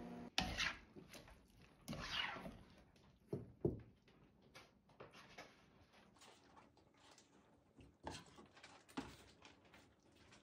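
Metal serving spoon scraping and knocking in a wok and on a plate as squid stir-fry is scooped out and served over rice: scattered clinks and scrapes, loudest in the first few seconds, then lighter taps.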